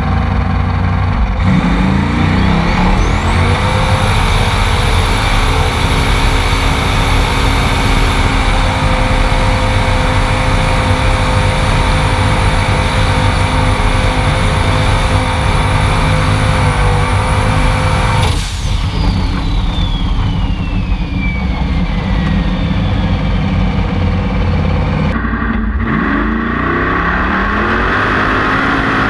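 Formula Offroad buggy's engine heard from inside the cockpit: it revs up and is held at high revs with a high whine for about fifteen seconds. Then a sharp knock, the revs drop and the whine winds slowly down, and near the end the engine revs up again.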